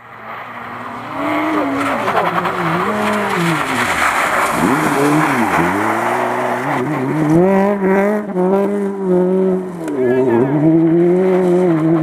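Honda Civic rally car's engine revved hard at full throttle, its pitch rising and falling repeatedly with gear changes and lifts, dropping low about four to six seconds in before climbing again. Tyre hiss on the wet surface is loudest over the first few seconds.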